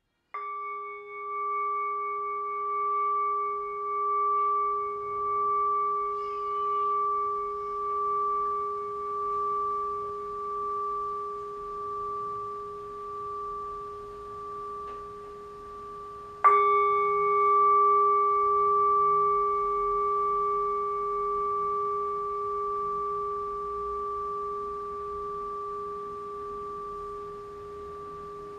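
Tibetan singing bowl struck twice, about sixteen seconds apart. Each strike rings on in a long tone that pulses slowly as it fades.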